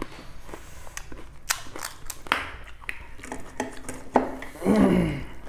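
Crisp pani puri shells cracking and crackling as fingers break into them and scoop potato filling from a steel bowl, with scattered sharp clicks against the plates. Near the end a voice lets out a short, loud sound that falls in pitch.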